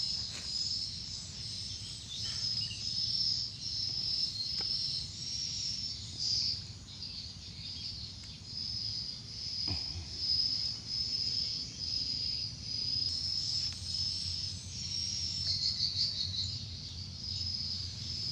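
Chorus of insects calling, a high buzzing trill that pulses in short repeated bursts, roughly one and a half a second, without letting up. A faint knock sounds about halfway through.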